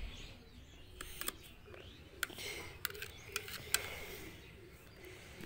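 Kitchen knife tapping on a plastic plate while onion is chopped fine: a handful of sharp, irregular clicks.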